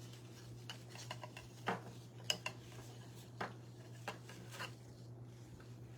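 Hands tying ribbon onto the end of a craft garland: soft rustling with a scatter of light clicks and taps from handling the ribbon and garland pieces, over a steady low hum.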